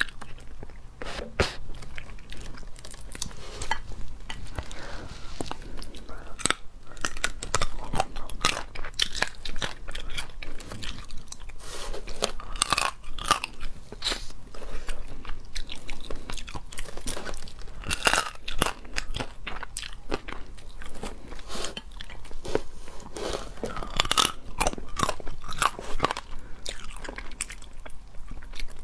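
Close-up eating sounds of a person biting and chewing through the shell, legs and claws of a large clawed crustacean (crayfish or lobster): many irregular sharp cracks and crunches with chewing in between.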